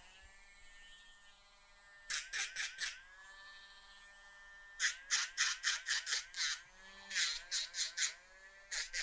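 Cordless rotary nail grinder running with a steady whine, broken by several bursts of quick, short grinding strokes as its drum is touched to a dog's toenails, about two, five and seven seconds in and again at the end. The motor's pitch sags under each touch and recovers.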